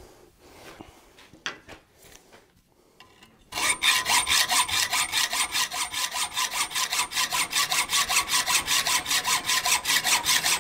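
Hacksaw cutting through the steel shank of a forged thumb screw held in a vise, in fast, even back-and-forth strokes that start about three and a half seconds in, after a few faint clicks. This is the screw being cut to length before threading.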